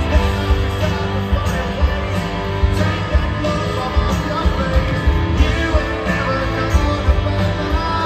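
Live rock band playing loudly over a large outdoor PA, with electric guitars, drums, bass and a sung vocal.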